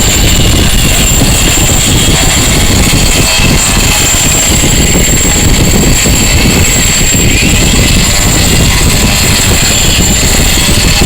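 Cordless angle grinder with a diamond cup wheel grinding concrete, running steadily: a high motor whine over a dense, rough grinding noise.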